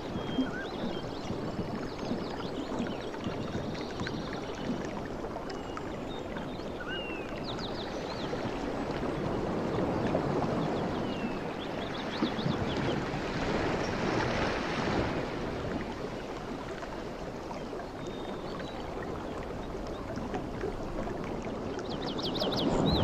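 Ocean waves washing in and drawing back, swelling twice, once in the middle and again near the end, with small birds chirping and trilling now and then over the surf.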